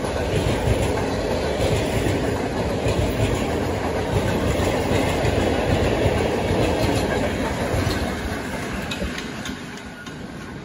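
Freight train of loaded flat wagons rolling past on the rails, a steady heavy rumble and rattle of wheels on track. It dies away over the last few seconds as the end of the train moves off.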